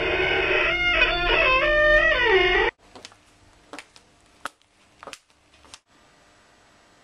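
A short burst of music that slides downward in pitch and cuts off abruptly, then about five sharp clicks of high-heeled shoes stepping across a hard classroom floor.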